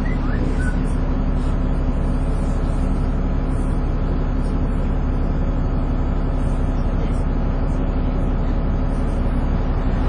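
Dennis Trident 2 double-decker bus running steadily with a constant drone, the vacuum-cleaner-like 'hoover' sound that gives such buses their nickname.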